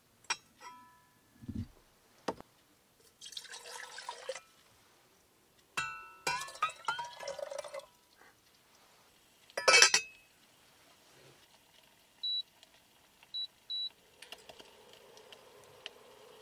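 Enamel drip kettle handled: its lid clinks off with a brief ring, water is poured in from a metal pot with clinks of metal on enamel, and the lid clatters back on loudly about ten seconds in. Then three short high electronic beeps, followed by a low steady hum.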